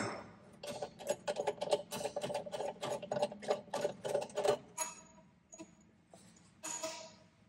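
Brass flare nut of a corrugated stainless-steel flexible gas line being spun off its threaded fitting by hand, a rapid run of metallic clicking and rattling for about four seconds, followed by a few lighter clinks as the flex line comes free.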